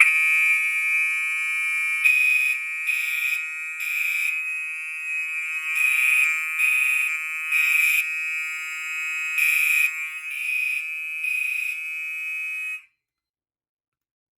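Gentex fire alarm horn strobes sounding in drill mode, set off from the Fire-Lite fire alarm panel's drill button. A continuous horn tone sounds with a second, pulsing horn pattern over it. Both cut off suddenly about 13 seconds in.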